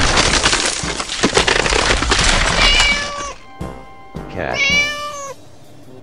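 Cartoon egg-cracking sound effect, a long crunching crackle of breaking shell, followed by a domestic cat meowing twice, the second meow longer.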